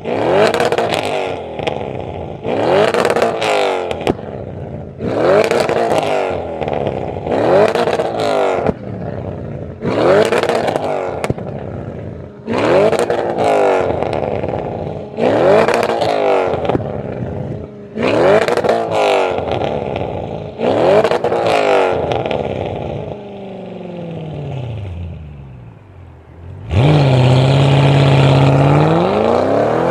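Supercar engine revved repeatedly, about ten throttle blips roughly two seconds apart, each rising and falling in pitch. The revs then die away, and near the end the car pulls off under hard acceleration with a loud, sustained engine note.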